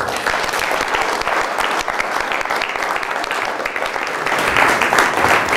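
Audience applauding, the clapping growing a little louder about four seconds in.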